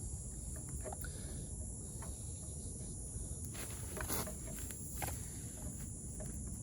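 Steady outdoor insect chorus, a high continuous drone, with a few faint knocks about four and five seconds in.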